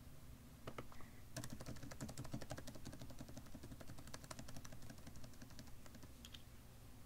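Computer keyboard keys tapped in quick succession while a line of text is deleted. A fast run of clicks starts about a second and a half in and thins to scattered taps over the last couple of seconds.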